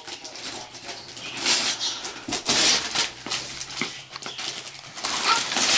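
Wrapping paper being torn and crinkled off a gift box by a small child's hands, in three or four rustling bursts.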